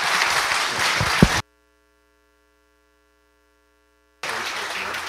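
A handheld microphone being handled and set down, with rustling and knocks and one sharp knock about a second in. The sound then cuts out to a faint electrical hum for about three seconds before the rustling handling noise returns near the end.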